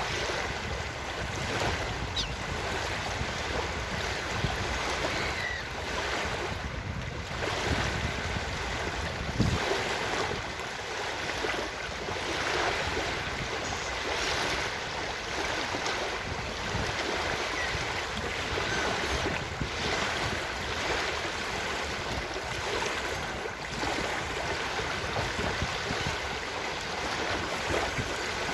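Ocean surf washing onto a beach, a steady rushing noise that swells and eases with the waves.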